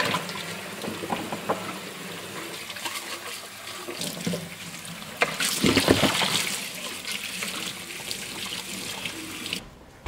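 Kitchen faucet running into a stainless steel sink while a plastic chick waterer is rinsed under the stream, the water splashing in and around the plastic container. The splashing gets louder a little past halfway, and the running water cuts off suddenly near the end.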